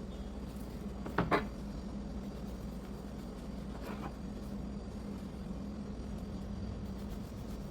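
Steady low hum with a held tone, with two quick light clicks close together about a second in and a fainter one about four seconds in.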